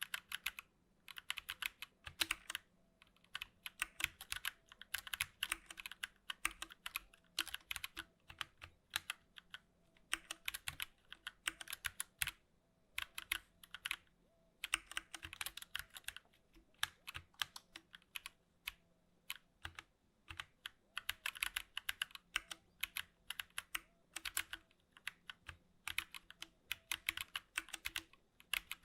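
Fast typing on a 60% mechanical gaming keyboard, with dense runs of key clicks and clacks broken by brief pauses every few seconds.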